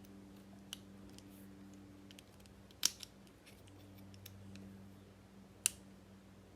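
A few sharp, small metallic clicks from lock parts and small tools being handled, the loudest a quick double click about three seconds in and another near the end. A faint steady hum runs underneath.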